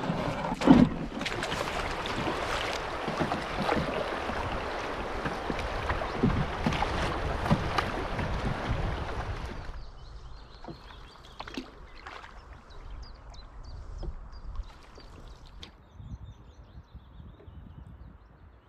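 Canoe paddling on a river: wind buffeting the bow-mounted camera's microphone over water and paddle noise, with a sharp knock near the start. About halfway through the sound drops to a quiet river-bank hush with faint high chirps.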